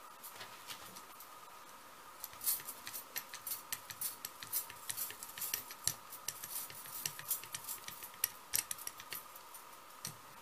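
Rapid, irregular light clicks and clinks as acrylic paint is mixed and spread by hand across a gel plate, starting a couple of seconds in and thinning out near the end.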